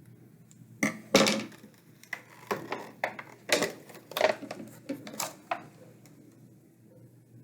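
A doll's box being opened and handled by hand: a string of sharp clicks, taps and knocks of packaging over about five seconds, starting about a second in.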